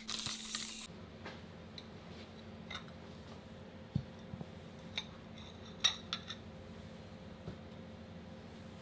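Ceramic plates and a saucer being set down on a cloth-covered table: a scattering of light clinks and taps over a faint steady hum, after a brief rustle at the start.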